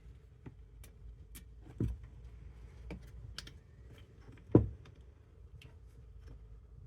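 Scattered light clicks and taps of a chainsaw's plastic parts being handled and fitted during reassembly, with two louder knocks about two seconds and four and a half seconds in.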